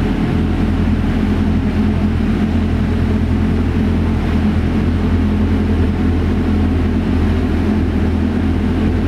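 Steady low mechanical hum, unchanging throughout.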